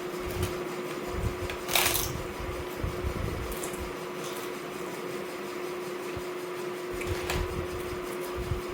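Close-up eating of a crunchy raw-vegetable salad (singju): irregular chewing and crunching, with one sharp crunch about two seconds in, over a steady hum.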